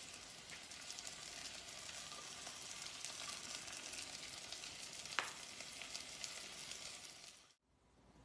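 Faint, steady sizzling of aromatics frying in coconut oil and rendered beef fat in a cast iron pot, with one light click about five seconds in. The sizzle cuts off abruptly about seven and a half seconds in.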